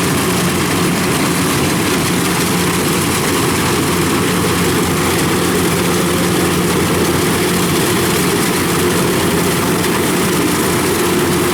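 Kubota rice combine harvester's diesel engine running steadily as it cuts rice, an even hum over a wide mechanical noise.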